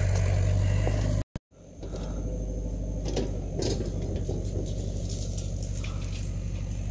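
Diesel excavator engine running steadily, a low hum. It drops out briefly about a second in and comes back quieter, with a few light knocks near the middle.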